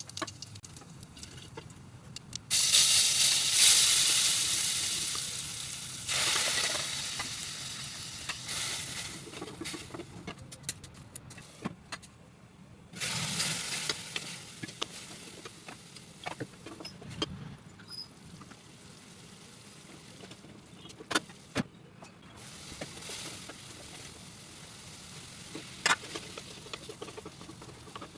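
Food frying in a pan of hot oil for aloo gobhi: a loud sizzle starts suddenly about two and a half seconds in and slowly dies down, then surges again around six and thirteen seconds. Scattered sharp clicks of a spoon or spatula against the pan come in between.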